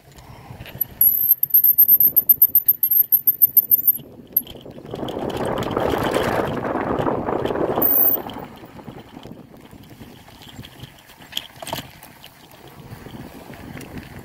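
Mountain bike riding along a sandy dirt trail: tyre crunch and frame rattle, with a fast even ticking from about one to four seconds in and a louder rushing stretch in the middle.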